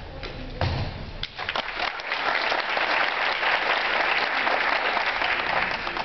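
A single sharp thump under a second in, then audience applause that swells about two seconds in and stays loud.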